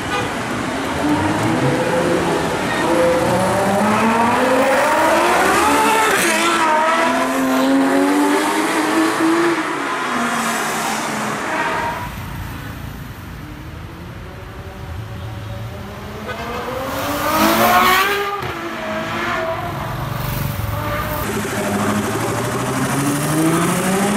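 Supercar engine accelerating hard: the engine note climbs in pitch again and again through the gears, drops back, and climbs once more. The sound breaks off abruptly about halfway, then further hard accelerations rise around two-thirds of the way through and again near the end.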